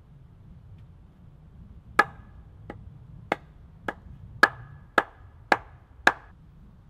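Wooden mallet knocking the top of an upright wooden post, driving it into the ground: eight blows about one every half second or so, starting about two seconds in. The blows vary in strength, the second and fourth lighter, and each has a short ring.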